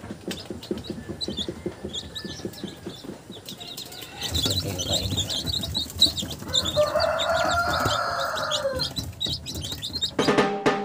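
Newly hatched Rhode Island Red, Black Australorp and Barred Plymouth Rock chicks peeping: many short, high peeps one after another, with a longer, lower drawn-out call in the middle. Music starts near the end.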